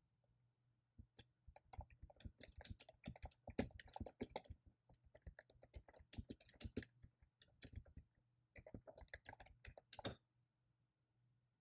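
Typing on a computer keyboard: quiet runs of rapid key clicks, pausing briefly about halfway and again a little later, then stopping near the end.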